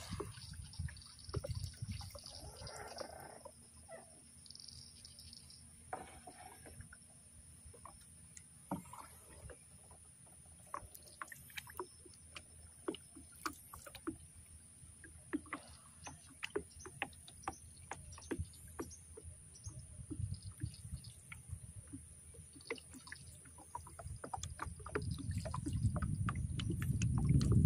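Wind and water around a small boat on open river water: a low wind rumble on the microphone with water lapping and scattered light knocks against the hull, swelling loudest near the end.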